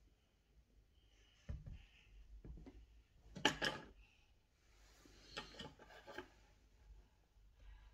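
Faint rubbing and light knocks of objects being handled, with a louder scraping rub about three and a half seconds in and a patter of small clicks and rustles a little after five seconds.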